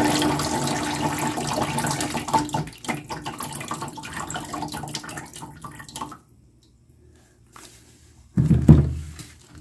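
Battery acid pouring and trickling out of the cell openings of an upturned 12-volt car battery into a plastic tub, a steady run that thins and dies away about six seconds in. A loud thump follows near the end, as the battery is handled and set down.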